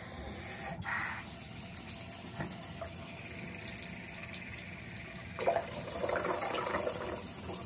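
Bathroom sink tap running steadily, the water cupped by hand to the mouth; about five seconds in the splashing gets fuller.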